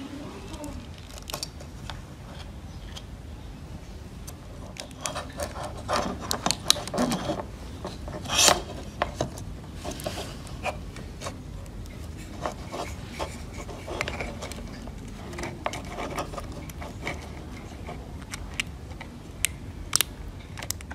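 Plastic security camera housing and its wiring being handled and fitted together by hand: scattered light clicks, taps and rubbing, busiest a little before the middle, with one louder scrape near the middle.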